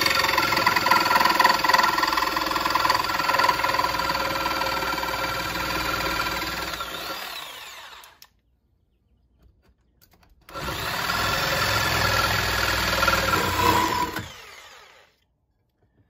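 Corded Ryobi jigsaw with a metal-cutting blade running and cutting through the damaged aluminium skeg of a sterndrive lower unit. One long cut of about eight seconds winds down, and after a short pause a second, shorter cut of about four seconds winds down too.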